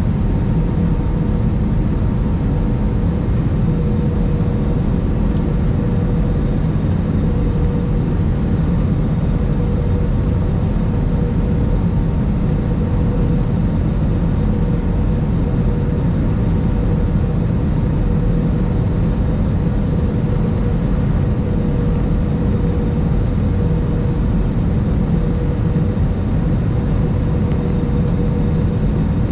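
Airbus A319 cabin noise heard at a window seat over the wing during the descent on approach: a steady rush of air and engine sound, low and heavy, with a constant hum running through it.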